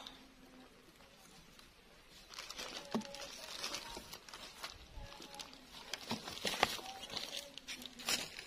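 Rustling and crackling with scattered sharp clicks and knocks, starting about two seconds in: handling noise from someone moving about in dry grass and setting up fishing gear close to the microphone.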